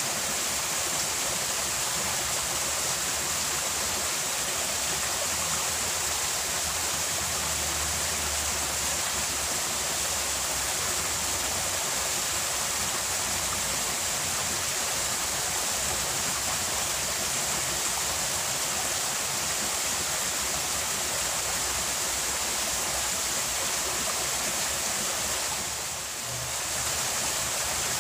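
Small rocky stream running over stones: a steady rushing of water, briefly softer near the end.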